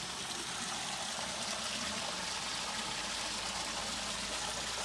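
Creek water running and trickling, a steady even rush of flowing water.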